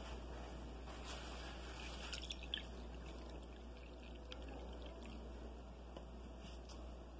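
Milk pouring from a carton into a ceramic cup, a faint steady trickle with a few small knocks.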